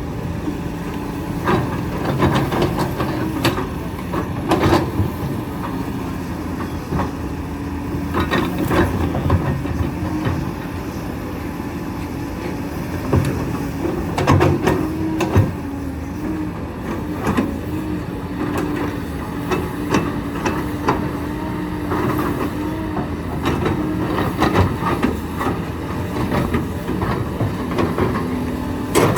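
Diesel hydraulic excavator engine running steadily while it digs limestone, with repeated knocks and clatter of rock and metal scattered throughout.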